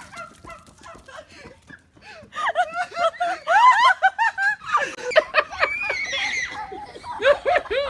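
A person laughing hard in a quick string of 'ha' bursts, starting about two seconds in after a quieter stretch of faint clicks.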